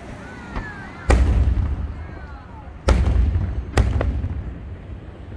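Aerial firework shells bursting: three loud booms, about a second, three seconds and nearly four seconds in, each trailing off in a low rumbling echo, with a smaller pop just before the first.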